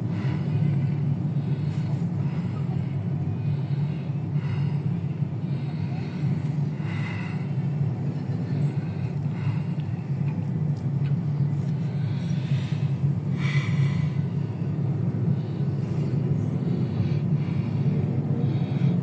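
Inside a moving car's cabin: a steady low rumble of engine and tyre noise on the road, with a few brief higher sounds from surrounding traffic.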